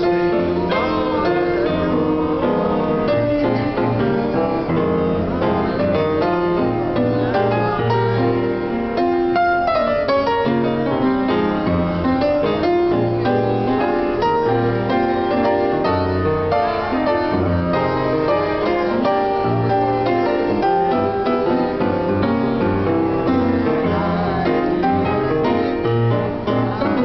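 Grand piano played solo, a steady flow of melody over chords.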